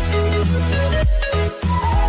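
Electronic outro music: a deep, heavy bass beat under short, stepped synth notes.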